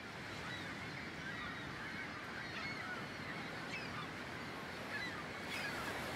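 A flock of birds giving many short, overlapping calls over a steady rushing background.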